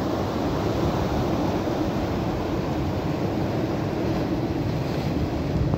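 Wind buffeting the microphone over the steady wash of surf breaking on rocks.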